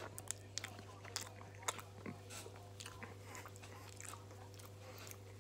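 A person chewing and eating fast food close to the microphone, with many sharp wet mouth clicks during the first two seconds and fewer after, over a steady low hum.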